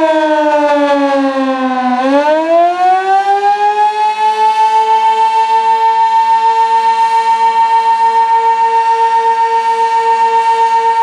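Sentry 16V1T-B outdoor warning siren sounding the attack signal. Its wail falls in pitch for about two seconds, then climbs quickly and holds a steady high tone.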